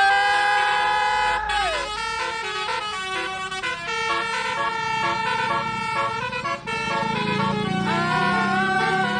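Basuri telolet bus air horn: a long multi-note horn chord that falls away in a downward glide about two seconds in, then a quick tune of short stepped horn notes, and another held chord near the end.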